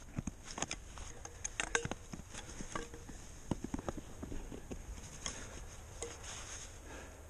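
Gloved hands digging and scraping fresh snow off rock, making irregular crunches and scrapes over a low steady rumble.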